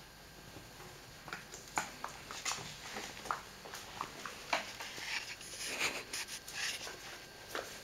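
Italian greyhound puppy playing with a plush toy: scattered light clicks, scrapes and rustles of paws and toy, starting about a second in and growing busier.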